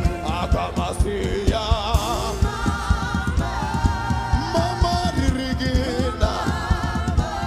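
Live gospel praise music: lead and group voices singing over a steady band beat with drums.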